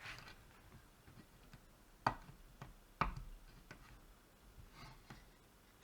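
A few light clicks and taps, with the two clearest about two and three seconds in and fainter ticks between them.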